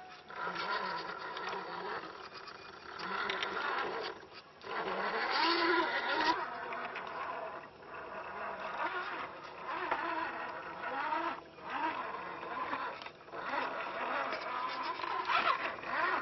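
Electric motor and gears of a radio-controlled scale Jeep Wrangler rock crawler whining, the pitch rising and falling with the throttle as it crawls over rocks, with short breaks every few seconds.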